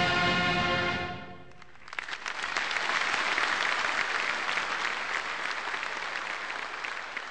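An orchestral chord holds and fades out over the first second and a half, and then a large audience breaks into applause about two seconds in, clapping steadily and tapering off only slightly.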